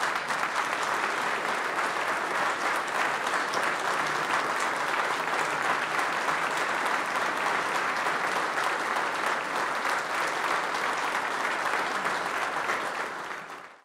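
Sustained applause from a large audience, steady throughout and fading out just before the end.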